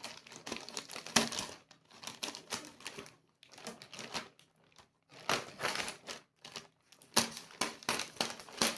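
A parcel's packaging crinkling and tearing as it is opened by hand: irregular spells of rustling and sharp clicks with short pauses between.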